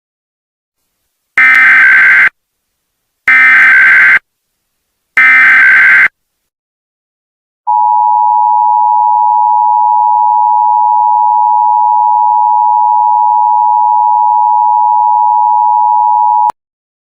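Emergency Alert System tones. Three short, loud bursts of SAME header data chirp about two seconds apart, each lasting nearly a second. Then the steady two-tone attention signal sounds for about nine seconds and cuts off abruptly, announcing an emergency alert message.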